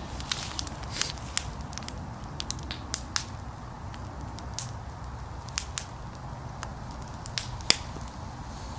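Wood fire crackling in a metal fire pit, with irregular sharp pops and snaps over a steady low rumble. One pop near the end is louder than the rest.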